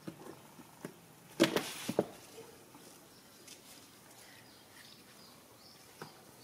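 A plastic bottle knocked and rattled against concrete: a quick cluster of sharp knocks about a second and a half in, and one more click near the end. Faint bird chirps in the background.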